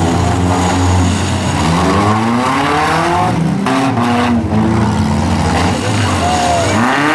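Several four-cylinder compact demolition derby cars revving hard, their engine notes rising and falling over one another. There are two sharp impacts a little after halfway.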